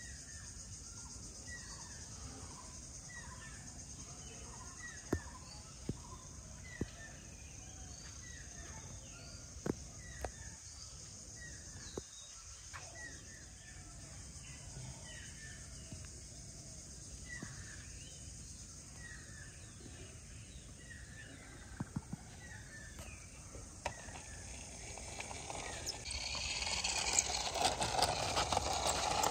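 A bird calling over and over in short falling chirps about every second, over a faint outdoor hiss with a few scattered clicks. Near the end a louder rough rolling noise builds up as a plastic toy car is pushed by hand along the wall's top.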